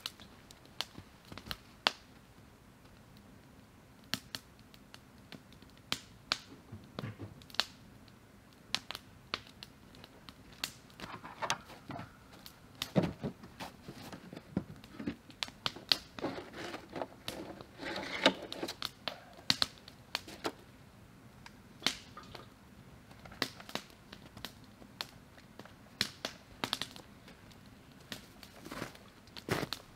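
Footsteps on snow and forest floor with scattered sharp clicks, and a spell of rustling and knocking about midway as a chainsaw and its gear are picked up off the ground. The chainsaw is not running.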